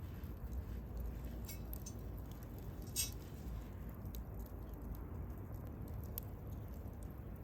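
Wood campfire burning: scattered sharp crackles and pops over a low, steady rumble of the flames, with one louder pop about three seconds in.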